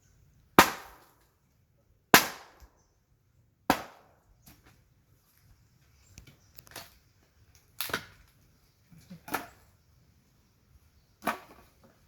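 Wood being chopped by hand with a blade: sharp chopping strikes into wood about every one and a half seconds, six strong ones with a weaker one in the middle, the first two loudest.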